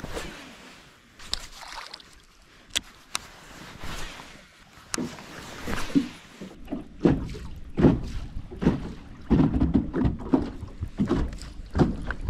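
Water lapping and slapping against a fishing boat's hull, in irregular splashes that get louder from about halfway through, with two sharp clicks a few seconds in.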